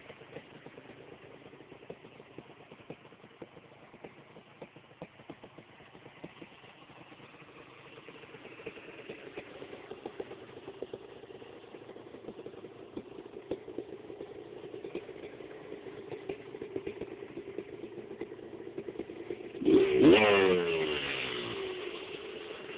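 1986 Honda TRX250R's single-cylinder two-stroke engine, fitted with an FMF exhaust, running at low revs with a clattery putter that slowly builds. Near the end it is revved hard, its pitch sweeping up.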